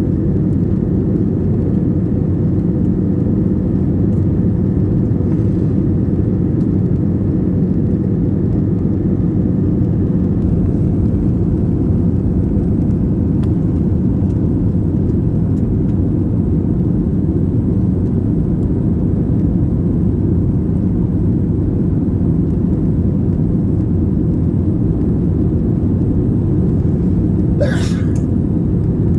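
Steady low rumble of an Airbus A320 in cruise, the engine and airflow noise heard from inside the passenger cabin. A brief short sound cuts through once near the end.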